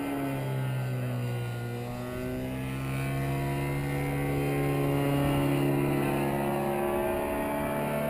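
Ros 100 two-stroke paramotor engine and propeller droning steadily in flight overhead, its pitch wavering slightly and growing a little louder around the middle.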